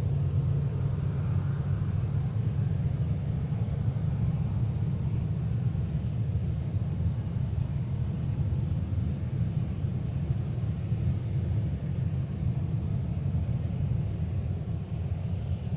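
Steady low rumble of airliner jet engines near the runway.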